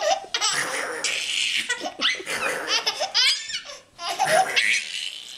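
A baby laughing in repeated high-pitched bursts, with a short break just before four seconds in.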